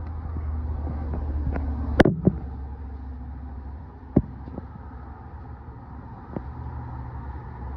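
A few sharp knocks of a metal snake hook and tongs bumping against a wooden box, the loudest about two seconds in, over a steady low rumble.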